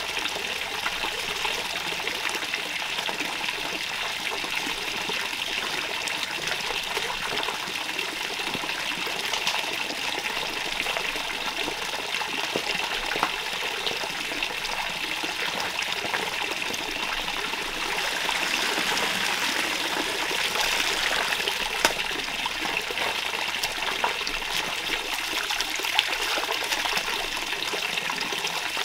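Shallow forest stream trickling and splashing steadily over rocks, with a few sharp clicks now and then.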